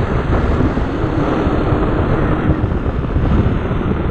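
Motorbike engine running at a steady cruising speed, its hum wavering slightly in pitch, under heavy wind rumble on the microphone.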